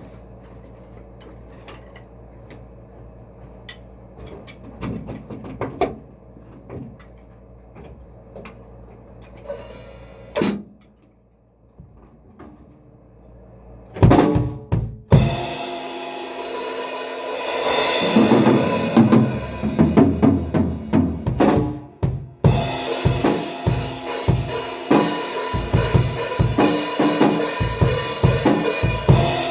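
A drum kit played loudly, with kick, snare and cymbals, together with other instruments, starting about halfway through. Before that there is only a low hum with a few faint knocks and one sharp knock.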